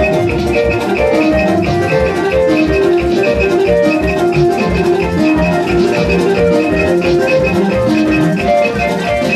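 Upbeat dance music with a steady, fast beat, bass, and bright keyboard melody lines.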